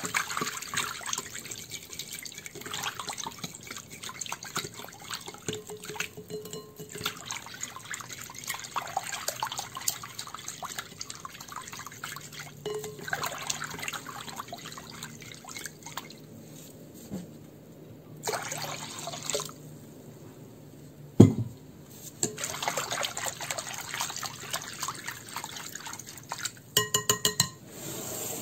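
Yellow plastic whisk beating an egg yolk and water mixture in a glass bowl: fast wet sloshing with the whisk wires clicking against the glass. A single sharp knock comes about two thirds of the way through, and near the end a quick run of taps sets the glass ringing.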